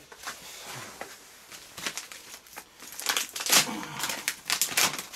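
Plastic firework packaging crinkling and rustling as packs are rummaged through and lifted by hand, busiest in the second half.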